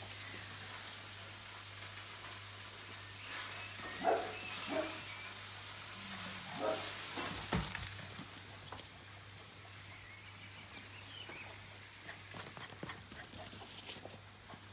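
Bichon frise puppy giving a few short yips, about four, five and seven seconds in, with a couple of knocks between them.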